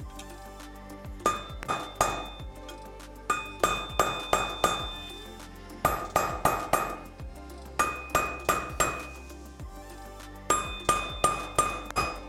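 Hammer striking a steel bearing driver, tapping a new rear wheel bearing into the sprocket-side hub of a 2017 Honda Africa Twin: sharp metallic blows with a bright ring, in five bursts of four or five quick strikes with short pauses between. The bearing is being driven down until it seats fully in the hub, where the blows sound different.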